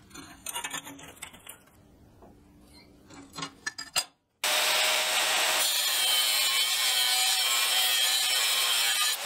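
Angle grinder with a cut-off disc slicing through a steel flat bar held in a bench vise: a loud, steady grinding hiss that starts abruptly near the middle and stops just before the end. Before it, light clicks and taps of steel bar and tools being handled on a metal bench.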